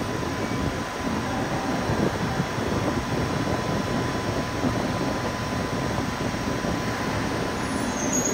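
Blue Line subway train standing at an underground platform with its air-conditioning and auxiliary equipment running in a steady whir, with a faint steady high tone.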